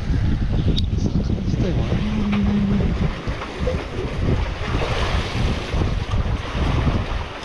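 Wind buffeting the microphone with a heavy low rumble, over sea waves washing against the rocks and tetrapods of a breakwater; the wash grows more noticeable in the second half. A short low steady hum sounds for about a second, two seconds in.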